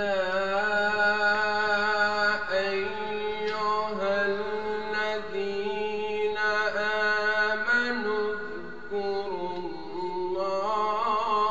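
A man's voice chanting Qur'an recitation in the melodic style, holding long ornamented notes on one sustained phrase that begins abruptly.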